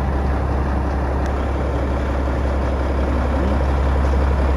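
Cummins N14 diesel engine of a Kenworth W900 semi truck running with a steady low drone that does not rise or fall.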